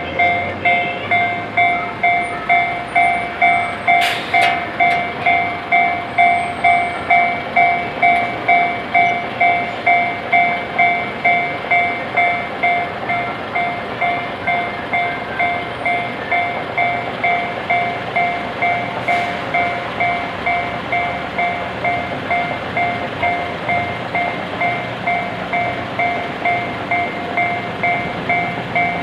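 Japanese railway level-crossing alarm starting up and ringing steadily, a ding repeating about twice a second. Two brief sharp clicks stand out, about four seconds in and again near nineteen seconds.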